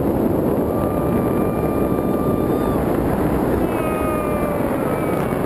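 Wind rushing over the camera microphone during a tandem parachute descent under an open canopy, a steady loud rush. A faint, high held tone comes through twice, about a second in and again about four seconds in.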